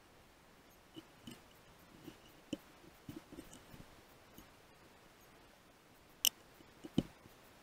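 Handling noise of a rifle and its night-vision scope being shifted on shooting sticks: a run of small soft knocks and rubs, then two sharp clicks near the end, the loudest sounds.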